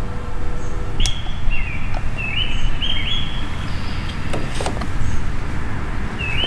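Birds chirping in short repeated phrases over a steady low rumble of background noise, with a few sharp clicks about four and a half seconds in.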